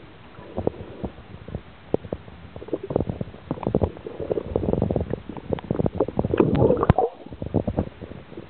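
Underwater bubbling and gurgling heard through a submerged camera: irregular pops of air bubbles, thickening into a dense gurgling burst about six to seven seconds in.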